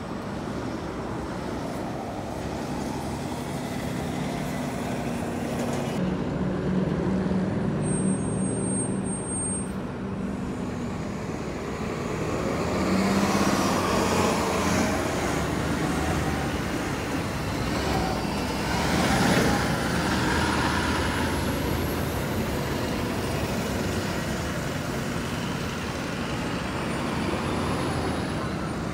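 City transit bus's engine running as it passes close by and turns, loudest around the middle, with a high whine rising in pitch about two-thirds through, against other road traffic.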